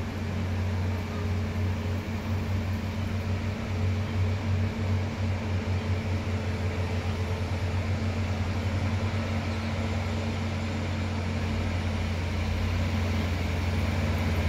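Heavy diesel truck engine pulling hard up a steep grade, a deep steady drone held at one pitch in a low gear, growing a little louder near the end as the truck nears.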